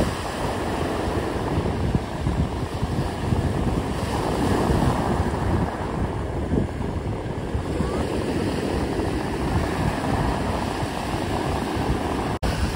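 Small waves breaking and washing onto a pebbly shore, with wind rumbling on the microphone.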